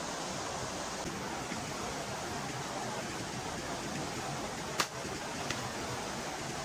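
A steady rushing noise like running water, with a sharp click a little under five seconds in and a fainter click just after.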